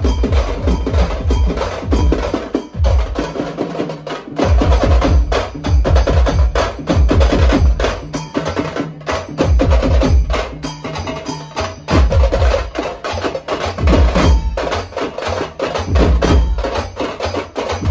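Folk band drumming at speed, sticks beating drums in a fast, dense rhythm over a booming low beat. The low beat drops out for a moment and comes back several times.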